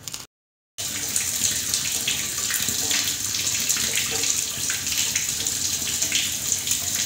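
A steady rush of water, hissing with many small crackling ticks, cutting in after a brief dead-silent gap.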